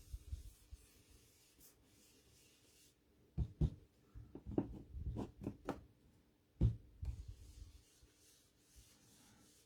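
Blending brush dabbing and rubbing ink through a paper template onto card stock. A run of soft taps and scuffs comes in the middle, with quiet before and after.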